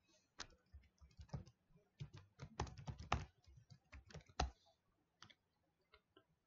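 Typing on a computer keyboard: an irregular run of key clicks as a username and password are entered, thinning to a few scattered clicks near the end.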